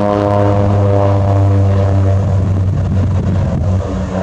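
Crop-dusting plane's propeller engine droning as it flies low, a steady pitched hum that grows rougher and a little quieter near the end.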